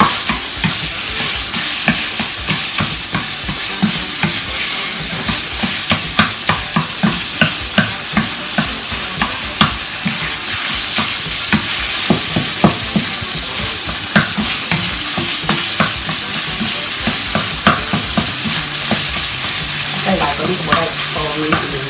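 Crumbled tofu sizzling in a non-stick frying pan as a wooden spatula stirs and scrapes it, knocking against the pan a few times a second.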